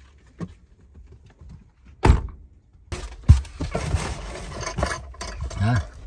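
Car seat backs and cargo floor mats being handled in the back of an SUV: one heavy thunk about two seconds in, then rustling and knocking with another thump.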